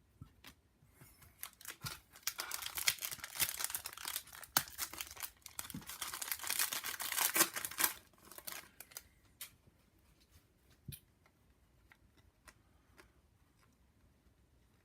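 A foil trading-card pack torn open, its wrapper crinkling for several seconds, then scattered light clicks and taps as the cards are handled.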